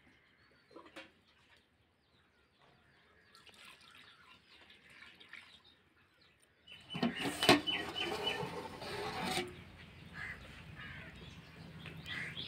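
Water poured from a steel tumbler into a large pot of biryani masala, splashing in loudly for a couple of seconds a little past halfway. Birds chirp in the background.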